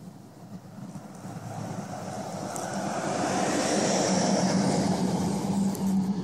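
A passing engine-driven vehicle: a steady hum with a rushing noise that swells louder over the first four seconds and starts to fall away near the end.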